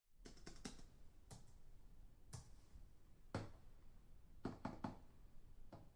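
Computer keyboard typing heard from a distance: faint, irregular key clicks in short runs, with one sharper keystroke about three seconds in.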